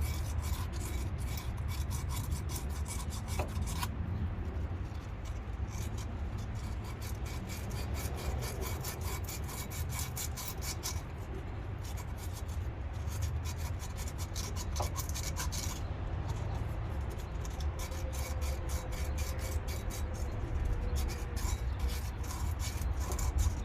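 Rapid back-and-forth abrasive rubbing strokes, several a second, as a corroded metal brake part is scrubbed clean by hand. A steady low rumble runs underneath.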